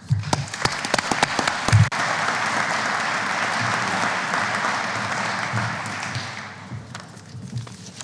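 An audience applauding, with a few knocks and low thumps in the first two seconds; the applause dies away about six and a half seconds in.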